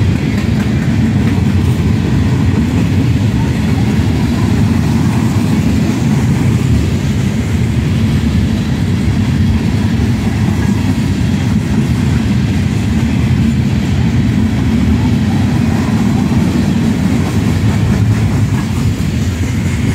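Long freight train of open-top gondola cars rolling past close by: a steady, continuous rumble of steel wheels on the rails.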